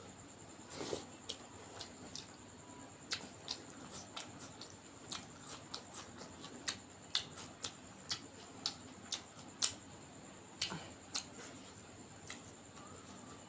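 Close-miked eating of duck curry and rice: irregular wet mouth clicks and smacks of chewing, one or two a second.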